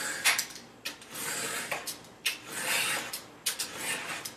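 Utility knife (box cutter) blade drawn through thick grey cardboard along a ruler: about four scraping cutting strokes, with sharp clicks between them.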